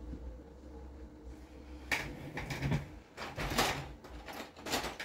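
A low steady hum, then from about two seconds in a run of loud, irregular knocking and scraping noises in uneven clusters.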